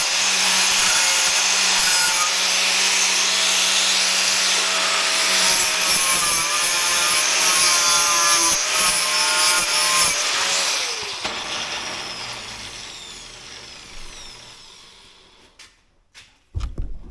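Wire wheel on a grinder stripping paint from a metal stool base, its motor pitch shifting under load. About eleven seconds in it is switched off and spins down over several seconds, with a couple of knocks near the end.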